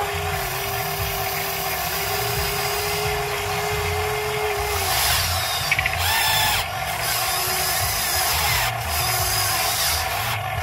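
Huina 580 metal RC excavator's electric motors and gear trains whirring as the boom and bucket work the soil. A steady whine runs over the first five seconds or so, then stops.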